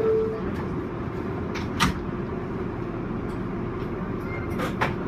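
Kawasaki R188 subway car standing in a station with a steady low hum. The low second note of the falling two-note door chime sounds at the start. A sharp clack comes about two seconds in, and two more come close together near the end.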